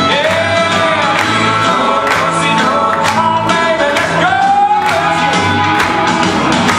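Country song with a singer over a steady beat of about two strikes a second, played back over loudspeakers for the line dancers.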